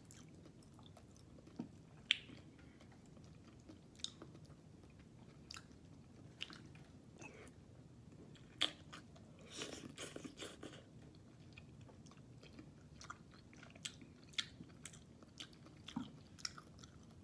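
A person eating a mouthful of sautéed sardines and sweet potato leaves: quiet chewing with scattered sharp clicks and smacks, and a short run of louder mouth noises about ten seconds in as a forkful goes in.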